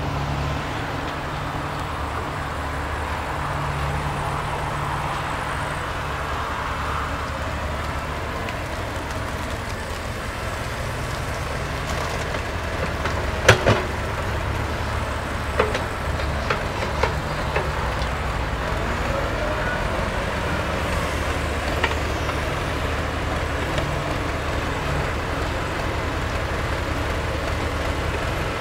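Diesel engines of a wheeled excavator and a small crawler bulldozer running, their low note swelling and easing as they work the silt. A few sharp metallic knocks come about halfway through, the first being the loudest.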